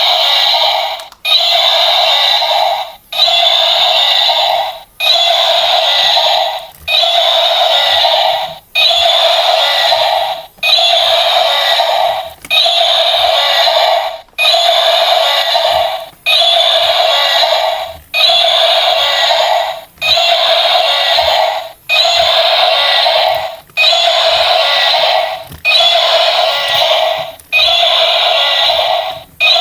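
Electronic alarm-like sound from a battery toy's small speaker: a loud, buzzy, warbling tone that plays in a loop, cutting off briefly and restarting about every two seconds.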